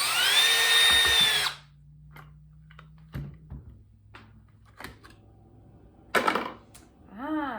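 Power drill running for about two seconds: its whine climbs in pitch as it spins up, holds, then stops. Scattered light clicks follow, then a short loud clatter near the end.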